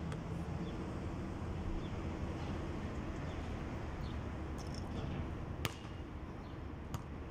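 Steady background rumble and hiss around a basketball being bounced and shot, with one sharp knock a little past the middle and a fainter knock near the end.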